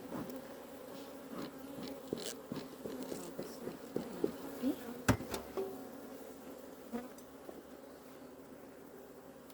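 Honeybees buzzing around an open hive in a steady hum, with a series of short wooden clicks and knocks from frames being handled. The sharpest knock comes about halfway through.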